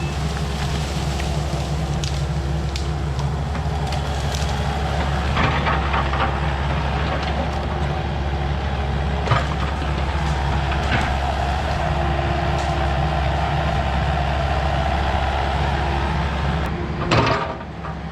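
Heavy-equipment diesel engine running steadily under load while brush is cleared, with scattered sharp cracks of branches snapping. A louder crash of breaking brush comes near the end.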